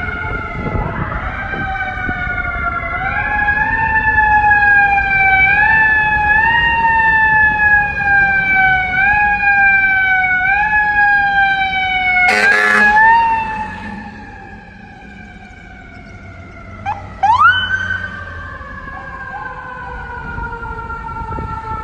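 FDNY fire apparatus sirens on an emergency response: a siren wails in repeated short rising steps that each sag back down, with a brief harsh blast about twelve seconds in. The sound then drops off and a second siren gives two quick rising whoops before a falling wail fades out.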